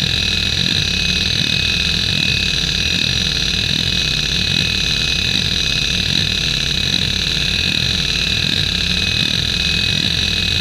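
Samsung WN310820A 1.08 GB single-platter hard drive running the hdmotion seek test: the head actuator buzzes with rapid seeks that rise and fall in pitch over and over as the seek pattern sweeps, over the steady high whine of its Nidec spindle motor. The drive is in good health.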